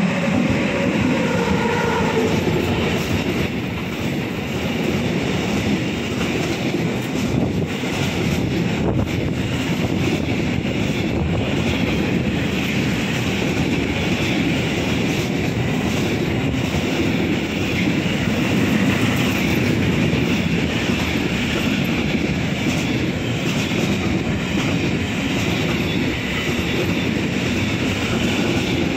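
A freight train passes close by at speed. As the two electric locomotives go past in the first couple of seconds, a few tones drop in pitch. Then comes a long, steady rumble and clatter of wheels from wagons carrying semi-trailers and containers.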